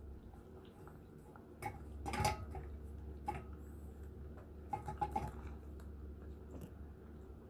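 Borzoi eating from its bowl: scattered crunches and knocks against the bowl, the loudest about two seconds in and a quick cluster about five seconds in, over a steady low hum.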